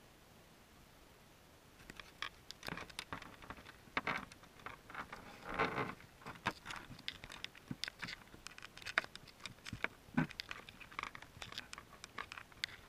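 Irregular underwater clicks, crackles and short scrapes on and around a submerged wire-mesh crawdad trap, heard through a GoPro's waterproof housing. They begin about two seconds in, with a few denser bursts of crackling.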